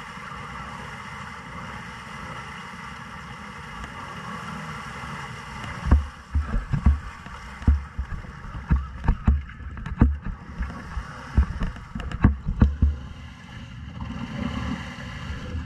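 An ATV engine running steadily while the quad sits nose-down in deep mud, then from about six seconds in a run of loud, irregular thumps and splashes as the machine is wrestled and rocked back onto its wheels.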